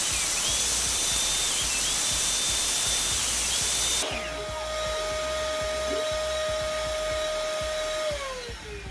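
DeWalt jobsite table saw running under load as its lowered blade cuts a shallow rebate along a hardwood board, its high whine dipping and recovering as the wood is fed. The saw cuts off suddenly about four seconds in, leaving a lower steady hum that drops in pitch and winds down near the end.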